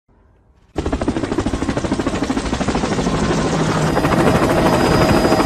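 Helicopter rotor sound effect: a fast, even chopping that starts about a second in and grows louder.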